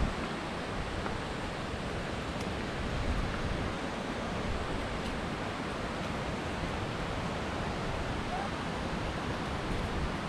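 Steady outdoor rushing noise with no distinct events standing out.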